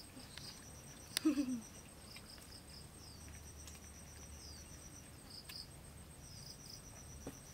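Puppies licking and lapping milk from a cupped hand, soft wet clicks, over insects chirping in a steady pulsed high trill. About a second in there is one brief falling sound with a click.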